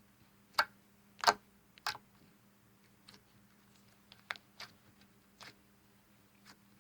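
Glittery slime being pressed and stretched by hand, making sharp clicking pops: three loud ones in the first two seconds, then softer scattered ones.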